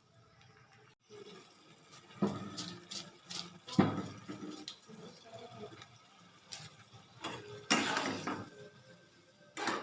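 Kitchen utensils and dishes being handled: a few sharp knocks and clinks, the loudest about four seconds in, and a longer clatter near the end.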